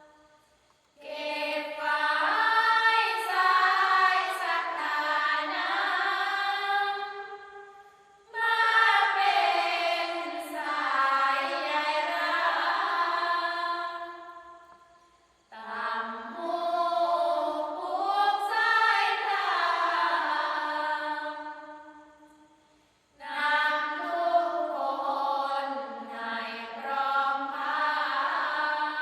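Thai sarabhanya: a group of voices chanting Buddhist devotional verse together, unaccompanied, in four long melodic phrases with short breaks between them.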